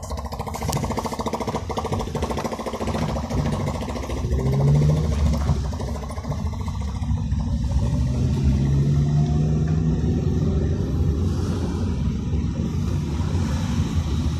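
A car's engine and tyre rumble, heard from inside the cabin while driving slowly. The engine note rises a little about a third of the way in, and again for a few seconds past the middle.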